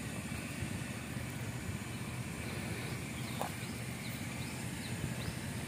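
Faint, steady outdoor background noise, with a few short high chirps and a couple of soft clicks in the second half.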